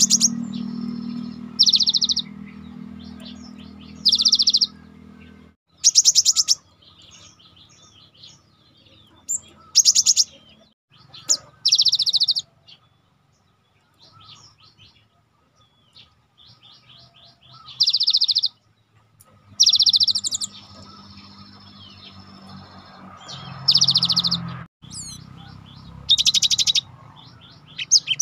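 Cinereous tit (gelatik batu) singing: loud bursts of fast, rapidly repeated high notes, each about a second long, coming again every few seconds, with softer chirps in between. A low hum sits underneath during parts of it.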